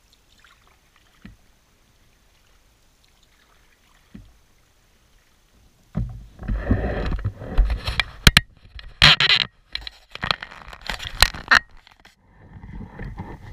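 Scraping, rubbing and knocking right at the microphone of a camera mounted on a canoe as it is handled and turned on its mount. A few faint knocks come first, then about six seconds in a loud run of rubbing and sharp clicks starts and stops just before the end.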